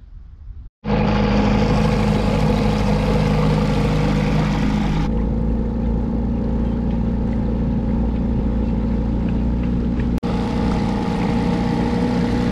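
Old 8 hp outboard motor running steadily with an even, unchanging note as it drives a small catamaran. The sound starts abruptly just under a second in, and a hiss riding over the engine stops suddenly about five seconds in.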